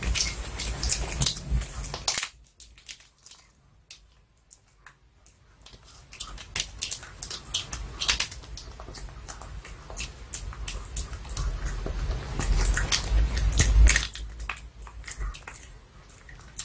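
Pomeranian gnawing a duck cartilage-bone chew treat: irregular sharp crunches and clicks of teeth on bone. It goes quiet for a few seconds about two seconds in, and a low rumble swells near the end.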